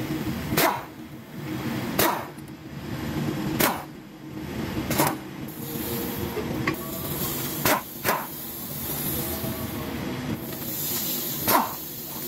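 Impact wrench firing in short, sharp bursts every second or two as it backs out the transmission oil pan bolts, with a steady low hum underneath.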